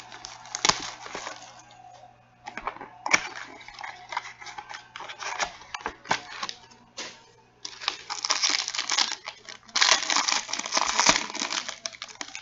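A sealed trading-card box and its packs being opened by hand: wrapper crinkling and tearing with scattered sharp clicks and taps, sparse at first and turning into a denser, louder rustle about two-thirds of the way in.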